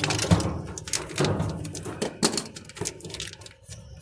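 Handling noise from a washing machine's wiring-harness clips and top panel being worked loose by hand: a run of irregular clicks and knocks with rubbing between them.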